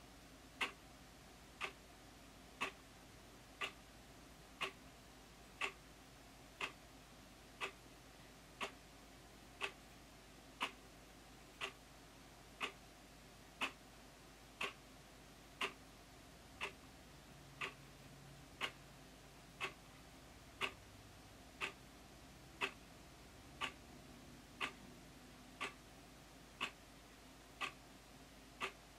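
White wall clock ticking steadily, one sharp tick each second as the second hand steps.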